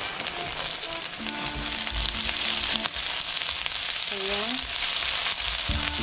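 Diced onion and minced garlic sizzling steadily in hot oil in a pan, stirred with a spatula partway through.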